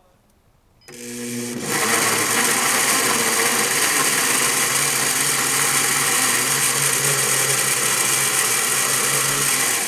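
High-power blender switched on about a second in, spinning up over the next second, then running steadily at full speed, chopping chunks of cucumber into a tomato purée. It blends without cavitation because there is enough liquid around the blade.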